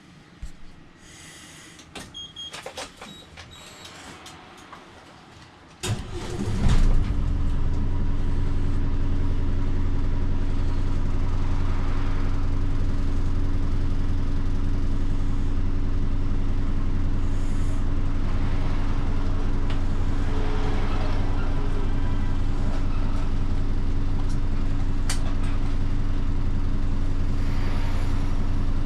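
Bus's diesel engine starting with a sudden loud catch about six seconds in, then idling steadily; a few light clicks come before it.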